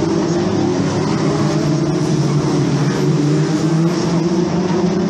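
Several Formula 2 stock car engines running together at a steady, moderate pace, their engine notes overlapping.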